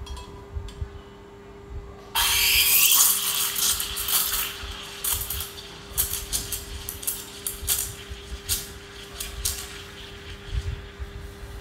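Espresso machine steam wand opening about two seconds in with a sudden loud hiss, then steaming milk in a stainless pitcher: steady hissing broken by a run of short, sharp sputters as air is drawn into the milk. A steady low hum runs underneath.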